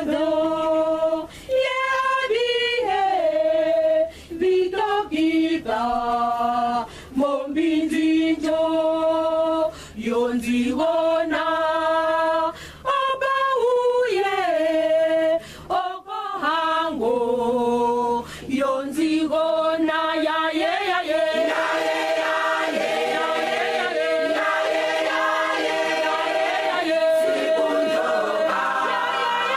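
Choir of women's voices singing a cappella in sustained phrases broken by short pauses. From about two-thirds of the way in, the parts overlap into fuller, continuous harmony.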